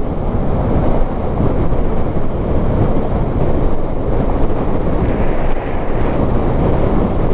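Steady wind buffeting the microphone and riding noise as a Daymak PitHog Max electric bike rolls along a gravelly road shoulder. The motor is not heard over the wind.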